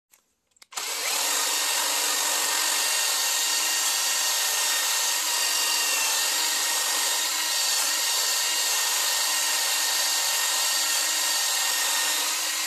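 Cordless Bosch impact driver spinning a small abrasive wheel against the rusty steel slide rails of a Makita miter saw, scouring off corrosion. It is a steady motor whine mixed with grinding, starting about a second in and running without a break.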